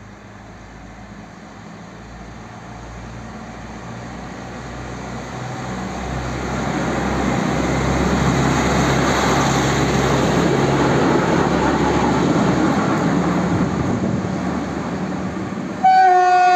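Two WM-15A motor draisines running through on the rails, their engine and running noise growing steadily louder as they come close and pass. Near the end a loud horn starts, one steady tone.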